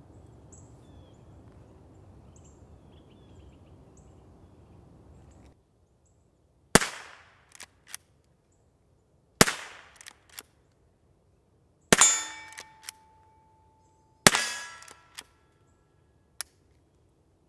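Four unsuppressed shots from a Henry lever-action .22 LR rifle, about two and a half seconds apart, each followed by the small clicks of the lever being worked to chamber the next round. A steady ringing tone hangs after the third shot, and a last lever click comes near the end.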